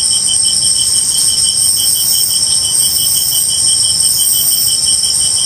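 Spirit box scanning radio static: a steady hiss with high whining tones and a sharp, regular pulse about four times a second, with no clear voice coming through.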